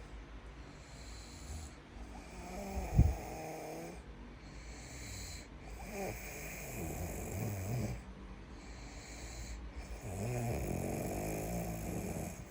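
Someone snoring in slow, regular breaths, about three in all, roughly four seconds apart, with one sudden loud catch about three seconds in.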